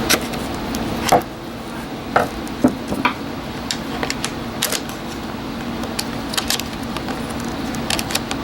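Irregular small clicks and taps of pliers and metal against an RC truck's plastic parts as a screw pin is wiggled out, over a steady hum.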